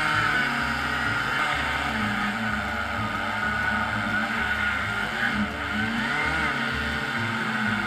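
Two-stroke chainsaw running at high revs, its pitch dipping briefly and recovering about six seconds in.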